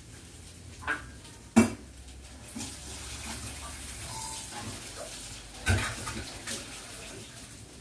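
Kitchen tap running into a sink for a few seconds, with clinks and clatter of dishes and utensils; a sharp clank about a second and a half in is the loudest sound.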